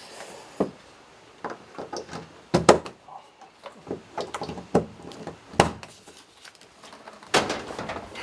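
A door that will not close being pushed and tugged at: a string of sharp knocks and clatters, then a longer scraping slide near the end.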